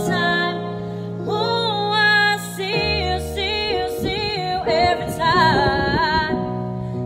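A woman singing into a microphone over an instrumental backing track, her voice gliding between held, wavering notes.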